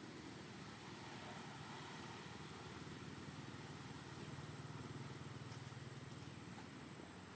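Faint low drone of a distant engine that swells about halfway through and eases off near the end, over a steady background hiss.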